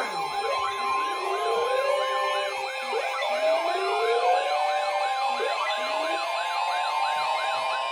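Several electronic sirens layered together: fast up-and-down yelp sweeps and slower rising wails, over a steady two-note alert tone of the kind that opens an emergency alert broadcast.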